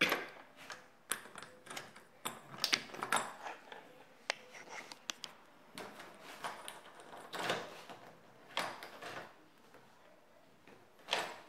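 A door and its knob being handled: irregular clicks, knocks and short scrapes. The door has been screwed shut.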